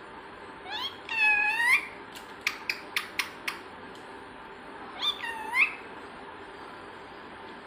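Two drawn-out, meow-like animal calls, one about a second in and one about five seconds in, each bending down and then up in pitch. A quick run of sharp clicks falls between them.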